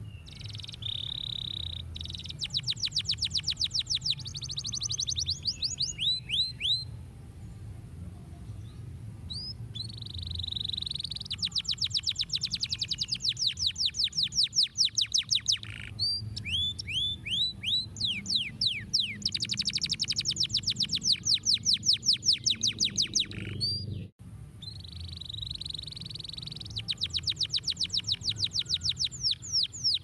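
Domestic canary singing in long phrases of fast trills: strings of sharp high notes repeated about ten times a second, mixed with a few slower down-slurred notes, with short pauses between phrases. A steady low rumble runs underneath.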